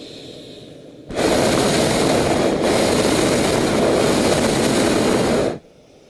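Hot air balloon's propane burner firing in one loud blast of about four and a half seconds, starting and stopping abruptly, with a momentary dip partway through.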